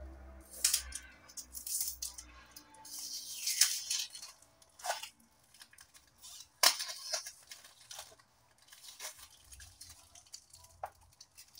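Plastic packing tape being peeled and torn off a clear plastic deli cup, with crinkling of the tape and sharp clicks of the plastic cup and lid being handled as the lid comes off.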